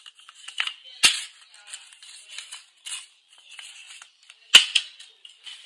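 A sheet of paper being folded and creased by hand, rustling and crackling, with two sharp snaps, about a second in and again about four and a half seconds in.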